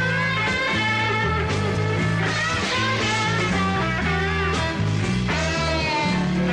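Blues-rock band playing an instrumental passage live, with a bass line stepping underneath and a lead line that bends up and down in pitch above it.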